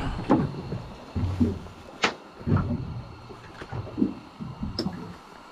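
Scattered knocks, clicks and low bumps from gear being handled on a small boat, with sharp taps about two seconds in and again near the end.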